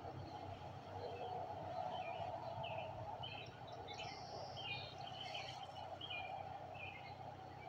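Songbirds chirping and calling at a distance: short high notes scattered throughout, thicker from about four seconds in, over a steady background hum.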